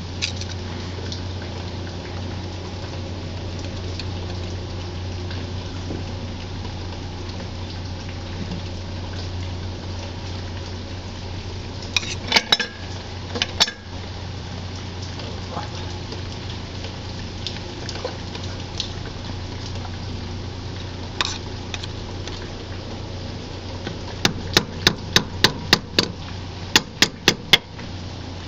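Hammer tapping on a screwdriver to work the old lower crankshaft oil seal out of a Kawasaki FH721V engine: a few sharp metallic clinks about twelve seconds in, a single one later, then a quick run of about a dozen taps, some four a second, near the end, over a steady low hum.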